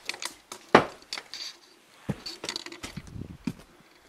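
Irregular clicks and knocks of footsteps and camera handling while walking, with one sharper knock about three-quarters of a second in.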